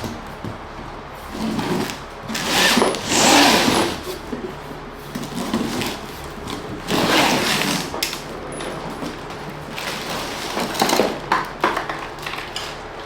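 A large cardboard box being opened by hand: several irregular bursts of ripping and rustling cardboard, the loudest about three seconds in, with a few sharp clicks near the end.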